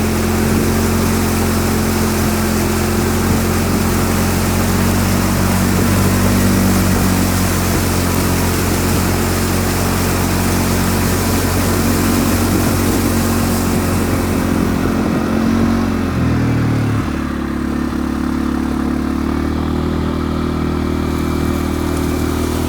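CFMOTO side-by-side buggy's engine running steadily under way, with a steady hiss over it. About sixteen seconds in the engine note drops and the hiss fades.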